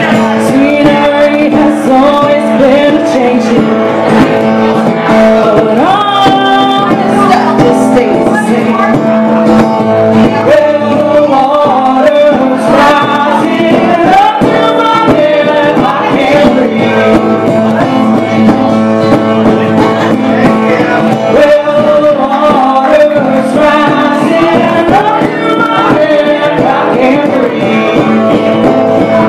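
Live acoustic guitar strummed steadily under sung vocals.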